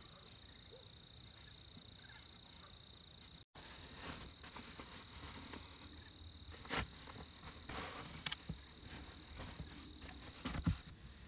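Crickets singing as a steady high-pitched tone. From about four seconds in, cloth drawstring pouches rustle and a few light knocks come as they are handled and set down.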